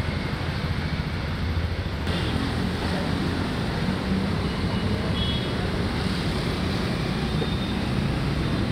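Steady low rumble of passing city road traffic.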